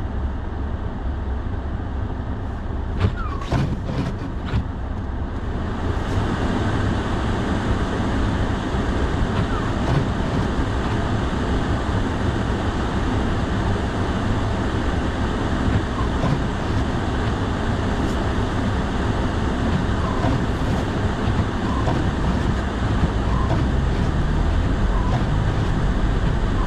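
Steady road and engine noise heard from inside a moving pickup truck's cab on snowy roads, with a few sharp clicks about three seconds in. About six seconds in the hiss gets louder and brighter.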